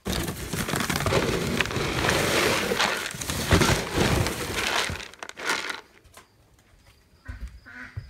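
Feed sack being handled close to the microphone, rustling and crinkling loudly for about five seconds, with one more brief rustle shortly after before it goes quiet.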